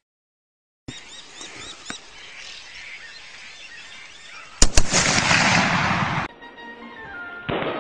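A gunshot: two sharp cracks close together about halfway through, followed by about a second and a half of reverberation. Background music starts near the end.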